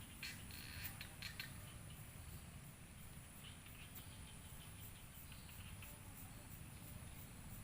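Faint scratching and rustling of hands working over hair and scalp during a head massage, over a steady low hum. The scratches come in a few short clusters, most in the first second and a half.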